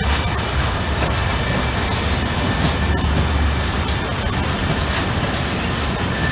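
Freight train wagons rolling past close by: a steady rumble of steel wheels on the rails, with occasional clicks.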